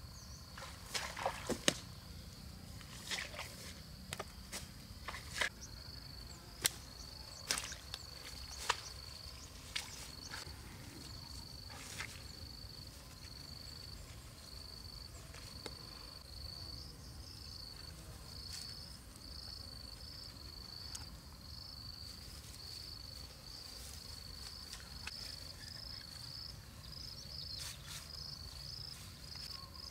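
An insect chirping high and evenly, about once a second and nearer twice a second toward the end. Over the first ten seconds or so come a few sharp clicks and snaps, as of grass stalks being handled.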